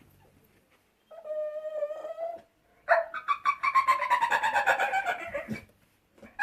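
A dog making high-pitched, dolphin-like squealing whines to get its owner's attention. A short, fairly steady whine comes about a second in, then a longer one that slides down in pitch with a pulsing, squeaky quality.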